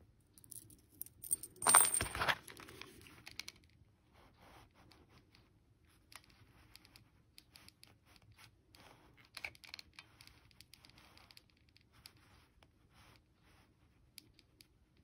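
A metal bottle-cap pendant blank clatters down with a brief metallic ring, followed by faint scattered clicks and taps as a hot glue gun and small shells are handled.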